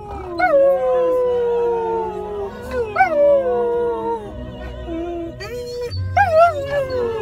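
Two Samoyeds howling along to a recorded song. Their long howls rise briefly and then slide down in pitch, with new howls starting about half a second, three seconds and six seconds in.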